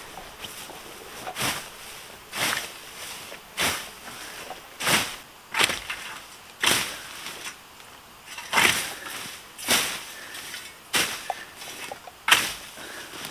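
A hand scythe swishing through tall grass and weeds, a short sharp swish with each stroke in a steady rhythm of about one stroke a second.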